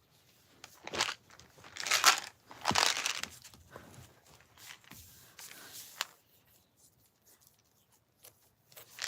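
Packaging being torn and crinkled open by hand: a few loud tearing bursts in the first three seconds, then smaller rustles that die away about two-thirds of the way through.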